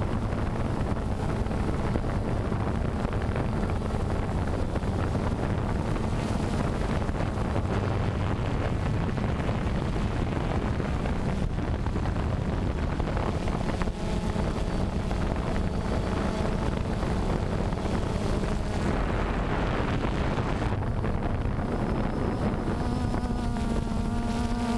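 Quadcopter drone's electric motors and propellers buzzing steadily, heard from the camera mounted on it, with wind rushing over the microphone. Near the end the buzz takes on a clearer pitch that rises slightly.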